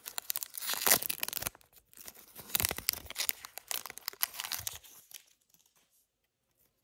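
A foil trading-card pack wrapper crinkling and being torn open, with several sharp rips, for about five seconds, then quiet.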